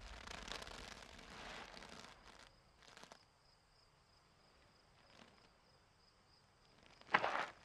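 Cartoon sound effects for a walking kiwi bird: a soft rustle for the first two seconds or so, then quiet, then a single footstep near the end.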